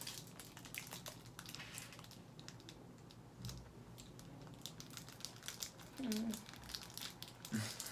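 Faint crinkling of a clear plastic food wrapper being handled, with scattered small clicks; a brief murmur about six seconds in and another near the end.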